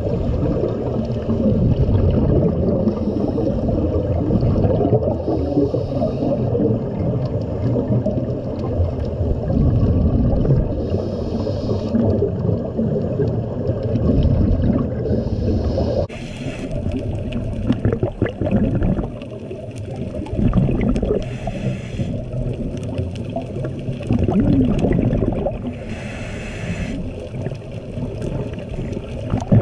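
Underwater recording: a steady low rumble of water moving against the camera housing, with a scuba diver's exhaled bubbles bursting out about every five seconds in the second half.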